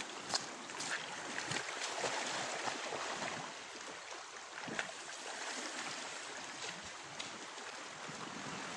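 Small waves lapping and washing against the rocks at the shoreline, a steady wash with a few faint ticks scattered through it.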